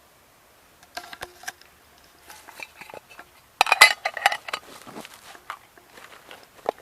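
Small metal items clinking and rattling as they are handled, in scattered clicks with brief ringing and a louder flurry of clinks about three and a half seconds in.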